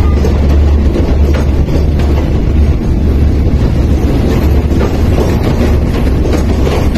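Passenger coaches of a departing train rolling slowly past alongside a platform. A steady low rumble runs under scattered clicks of the wheels passing over rail joints.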